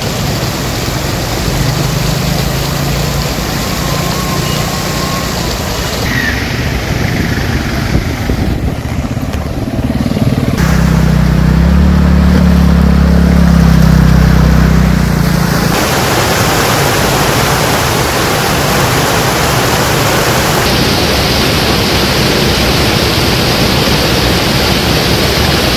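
Floodwater running across a highway as vehicles drive through it. In the middle an engine runs close by for about five seconds, the loudest part. After that comes a steady rush of water pouring over the edge of the road.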